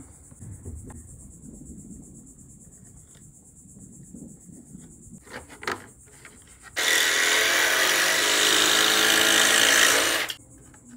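Electric jigsaw cutting through a wooden plank, running steadily for about three and a half seconds and stopping just before the end. Before it starts there are a few light knocks.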